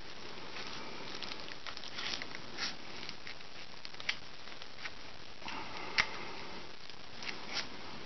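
Small clicks, taps and rubbing from hands pressing a small FPV camera onto the plastic camera gimbal of a quadcopter, over a steady hiss. The sharpest click comes about six seconds in.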